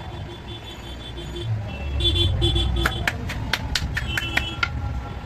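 Road traffic rumbling, with short repeated beeps and a run of sharp clicks. The rumble swells about two seconds in.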